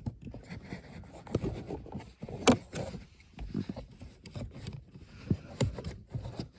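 Hands working at the plastic cabin air filter housing behind the passenger footwell panel: scattered light clicks and scrapes of plastic, with one sharper click about two and a half seconds in.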